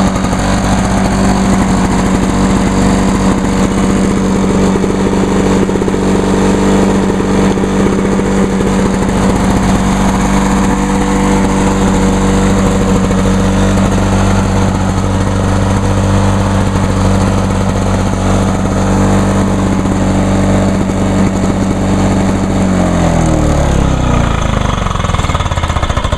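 1986 Lawn-Boy 8461 Commercial mower's two-stroke engine running steadily, then shut off near the end, its pitch falling as it winds down to a stop.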